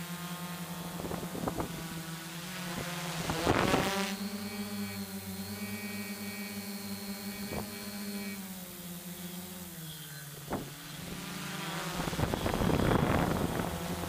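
An FPV drone's electric motors and propellers running with a steady buzzing hum that dips in pitch about two-thirds of the way through. Wind buffets the onboard microphone in two gusts, one near the start and one near the end.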